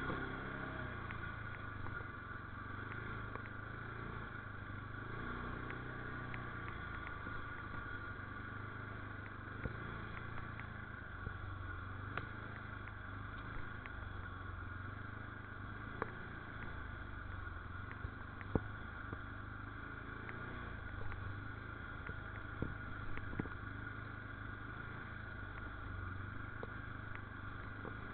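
All-terrain vehicle (quad) engine running steadily at low trail speed, with scattered sharp knocks and rattles, the loudest about two-thirds of the way through.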